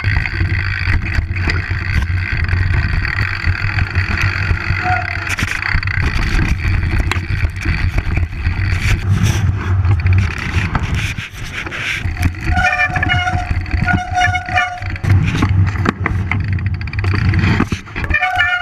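Downhill mountain bike descending a rough trail: loud, continuous wind rush on the body-mounted camera's microphone mixed with tyre and trail noise. A few brief squealing tones come in during the second half.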